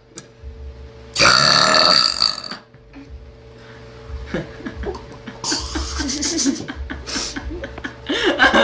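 A girl's long, loud burp, starting about a second in and lasting about a second and a half.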